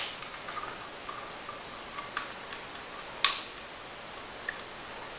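Scattered light clicks and taps of small fork-rebuild parts being handled and set down on a workbench, with one sharper click a little over three seconds in, over a faint steady hiss.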